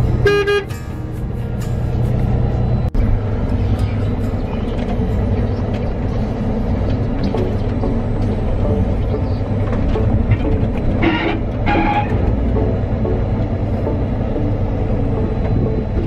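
Steady low running of a CLAAS Lexion combine's engine, heard from inside the cab as the combine picks up its corn head. A short beep sounds at the start, and two more short tones come a second apart later on.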